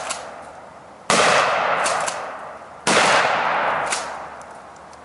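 Two shots from a 12-gauge Mossberg Maverick 88 pump-action shotgun, about two seconds apart, each trailing off over about a second and a half. Short clacks follow each shot, as the pump is worked.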